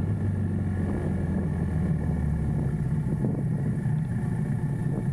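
Motorcycle engine running steadily while riding uphill, its low note shifting a little under three seconds in.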